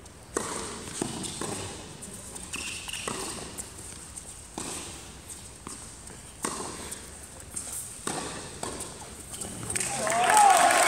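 A tennis rally: sharp, separate knocks of racket strikes and ball bounces about a second or two apart, with a brief high squeak about three seconds in. Near the end, spectators' voices rise as the point ends.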